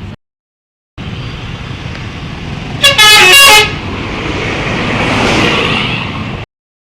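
A bus telolet horn plays a quick run of changing musical notes, very loud, about three seconds in, over traffic noise. The noise of the passing bus then swells and fades. The sound cuts out to dead silence briefly near the start and again near the end.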